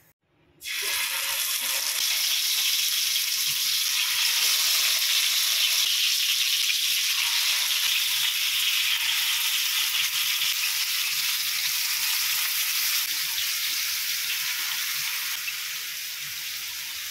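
Marinated chicken pieces sizzling as they shallow-fry in hot oil in a frying pan: a steady hiss that starts suddenly about half a second in and gets a little quieter near the end.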